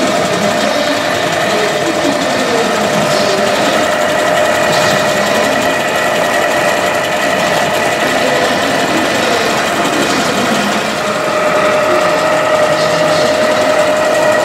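Hand-built scale model threshing machine running off a belt from a small compressed-air model engine: a steady, rapid mechanical clatter of belts, pulleys and moving parts, with a steady whine that grows stronger near the end.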